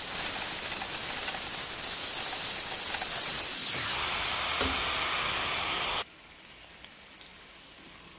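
Chopped onions and ground meat sizzling in a frying pan. The sizzle is loud and even, then turns much quieter about six seconds in.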